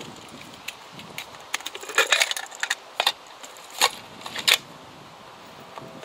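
A series of sharp metallic clicks and knocks from an olive-green metal canister being handled and set down. The loudest come in a cluster about two seconds in and again near three, four and four and a half seconds in.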